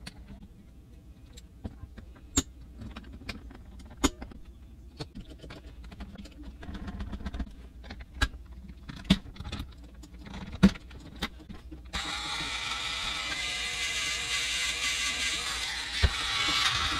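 Sharp plastic clicks and taps as a Thomas Trackmaster toy engine's body and chassis are snapped together by hand. About twelve seconds in, its battery motor and gears switch on and run with a steady whir, with one sharp knock a few seconds later.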